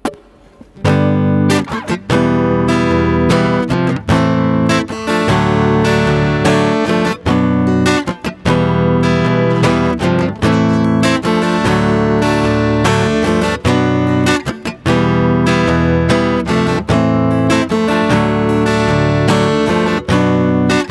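Instrumental karaoke backing track, transposed down one key, led by strummed acoustic guitar, with no vocals. It starts about a second in.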